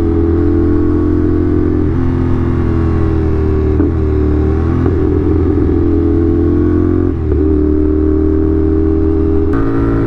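CFMoto 450SR's 270-degree parallel-twin engine running under steady throttle while riding, heard from the rider's position. The engine note breaks briefly about 2, 4 and 7 seconds in, and shifts just before the end.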